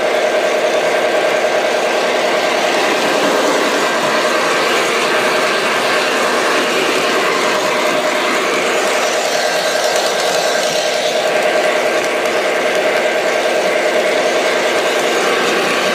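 O scale model train running along the track close to the microphone: a steady mechanical hum with a constant whine over it.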